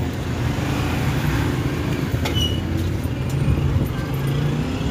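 A motor vehicle engine running steadily amid street traffic, with a brief click about two seconds in.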